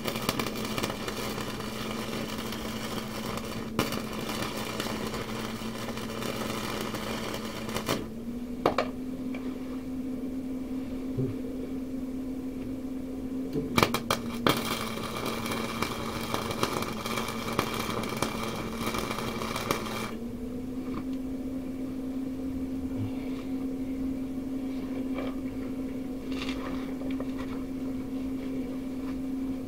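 Electric welding arc crackling on steel in two runs of about six to eight seconds, the first at the start and the second beginning about fourteen seconds in, each struck with a sharp click. A steady electrical hum runs underneath and dips slightly in pitch while the arc is burning.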